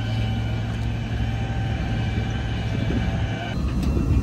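A vehicle engine running steadily, with a low hum and a faint steady whine above it. The sound changes about three and a half seconds in.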